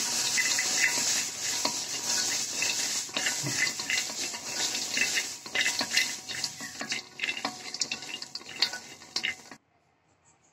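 Wooden spatula stirring blanched almonds in a dark pan, the nuts clicking and scraping against the pan over a steady hiss. The sound cuts off suddenly near the end.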